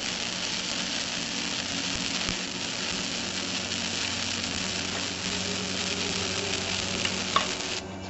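Electric arc welding a steel patch piece in place: a steady crackling sizzle of the arc, with a sharp click shortly before it cuts off abruptly near the end.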